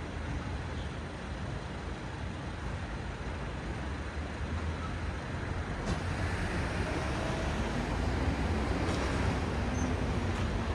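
City road traffic at an intersection: a steady hiss and rumble of car and bus engines and tyres. It swells gradually over the second half as vehicles draw nearer.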